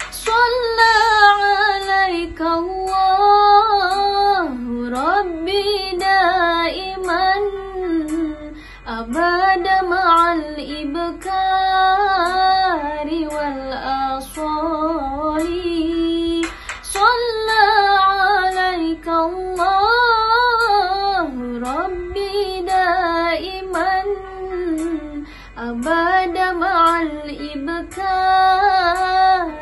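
A young woman singing an Arabic sholawat solo, one voice in long phrases with ornamented runs that bend up and down. She breaks for breath roughly every eight seconds.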